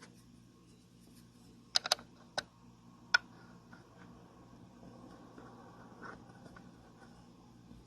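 A few sharp clicks and knocks of hard parts being handled: a quick cluster of three about two seconds in, one more shortly after, then faint rustling and handling.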